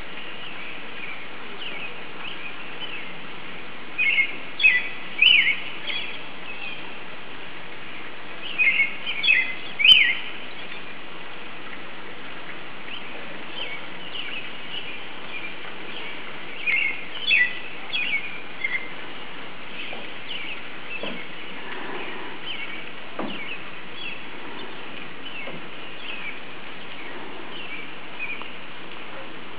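Songbirds chirping in short runs of quick notes, with three louder clusters about four, nine and seventeen seconds in, over a steady even hiss.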